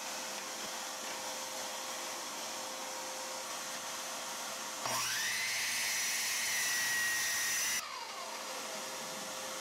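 Makita miter saw motor spinning up with a rising whine, running steadily for about three seconds, then switched off and winding down with a falling whine. A steady hiss runs underneath.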